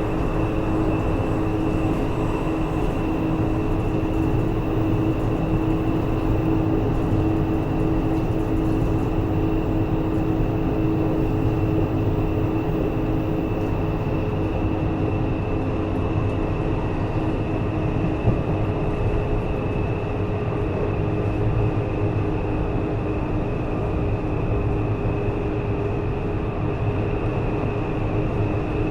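Taipei Metro Series C301 train, heard from inside the car, running at a steady speed. There is a continuous rumble of wheels on track, with a steady high whine and a few low hums that hold their pitch.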